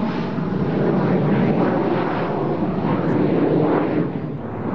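Dassault-Dornier Alpha Jets flying overhead in a climbing formation, with the steady rushing noise of their twin turbofan engines.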